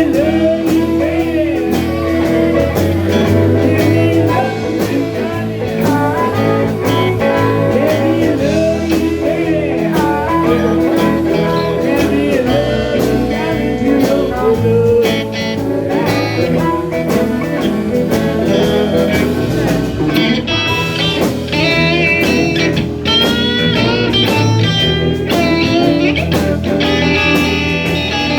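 Live blues band playing, with a guitar lead of bent notes that climbs higher and gets busier in the last third.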